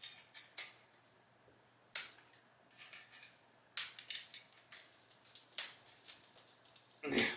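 Packaging being opened by hand: scattered clicks, scrapes and rustles, with sharper snaps about two, four and five and a half seconds in.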